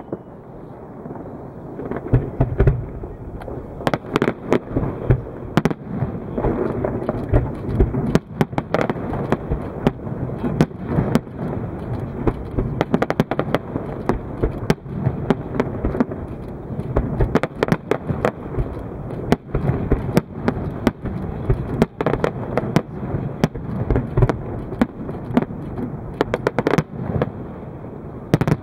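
Aerial fireworks display: after a brief lull, shells start bursting about two seconds in, a dense, irregular run of sharp bangs and crackles over a continuous rumble.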